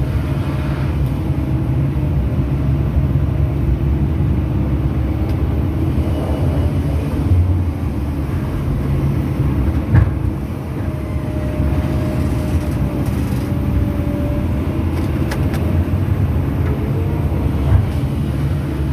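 Long-arm excavator's diesel engine running steadily under work, with a single sharp knock about halfway through.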